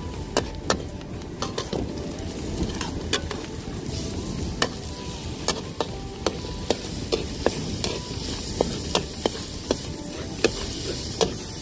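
Metal spatula scraping and clanking against a metal wok in repeated sharp strikes while shallots and garlic sizzle in oil with scrambled egg: the aromatics being sautéed for fried rice.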